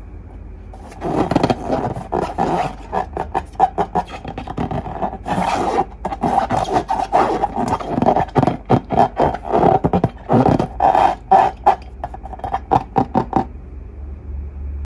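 Rubber of long balloons being rubbed and squeezed, squeaking in quick uneven runs with a recurring squeaky pitch. It starts about a second in and stops a little before the end.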